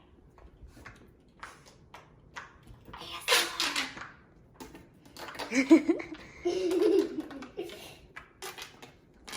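Scattered soft clicks and pops of fidget toys, silicone pop-it poppets being pressed by hand. A child's voice breaks in about three seconds in and again around the middle.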